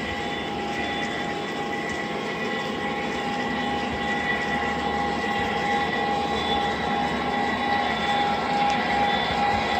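Lionel O scale three-rail model trains running on the track: wheels rolling with a steady rumble and a steady high whine.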